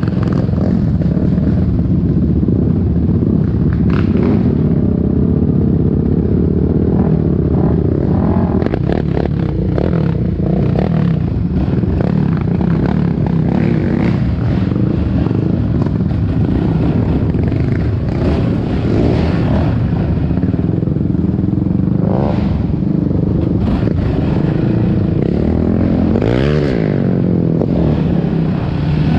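Yamaha Raptor 700R ATV's single-cylinder four-stroke engine running on throttle over a rough dirt trail, heard from the rider's helmet camera, with rattles and scrapes from the bumpy ground. Near the end the engine revs up and drops back quickly.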